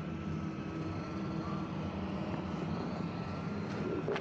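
Steady outdoor background noise from the race course: a low hum, with a faint thin tone held through most of it.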